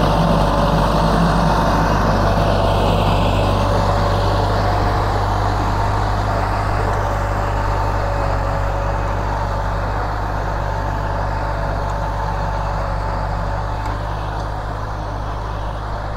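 Kubota L4708 tractor's 47-horsepower four-cylinder diesel engine running steadily under load while pushing soil with a front blade and drawing a disc ridger, fading slowly as the tractor moves away.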